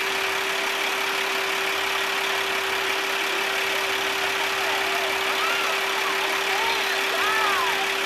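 Fire department aerial ladder truck's engine idling steadily, with a constant hum.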